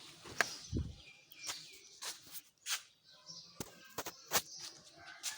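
Toyota Corolla engine idling low, then switched off about a second in with a brief low shudder. Scattered clicks and knocks and a few bird chirps follow.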